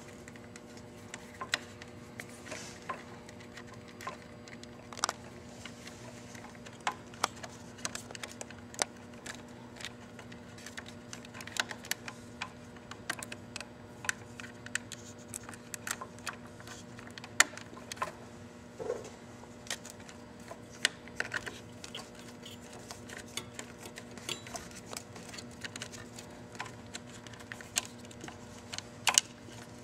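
Irregular small metallic clicks and taps of hands and a nut driver working a battery terminal bolt and the ring terminal of a power lead, over a steady low hum.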